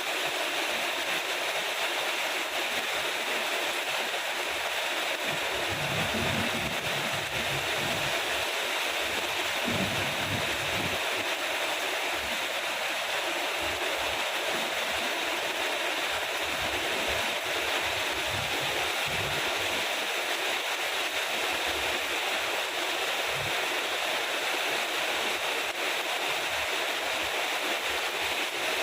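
Steady rain falling, a continuous even hiss, with soft low rumbles now and then, most around six to ten seconds in.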